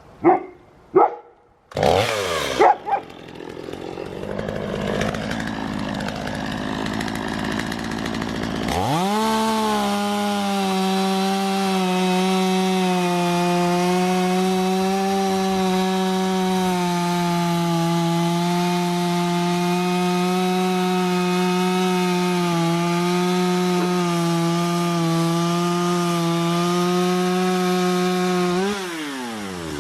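A dog barks a couple of times at the start. Then a gasoline chainsaw revs up and runs at high, steady revs for about twenty seconds as it cuts into a large round hay bale, its revs dropping off near the end.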